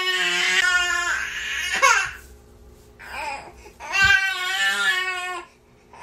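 Infant crying in pitched, wavering wails: a long cry, a short pause with a brief whimpering sound, then another long cry.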